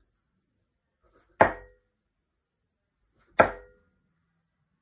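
Two darts striking a Winmau Blade sisal bristle dartboard, about two seconds apart, each a sharp smack with a brief ring after it.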